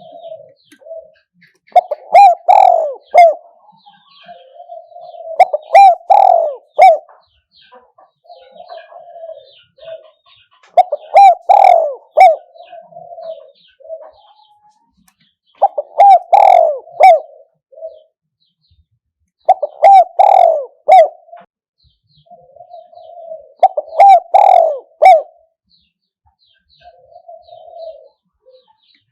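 Spotted dove cooing in repeated phrases, six loud ones about every four seconds with softer coos between them. Faint high chirps of other birds sound in the background.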